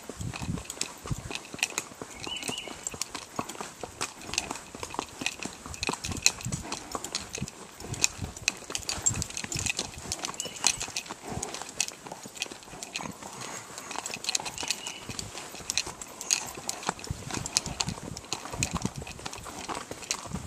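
A ridden horse's hooves striking a gravel drive, heard from the saddle: a steady run of hoofbeats with gravel crunching under them.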